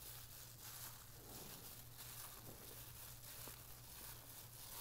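Faint squishing and crinkling as raw chicken pieces are mixed by hand with spices, chopped tomato and onion in a bowl, through a disposable plastic glove, over a steady low hum.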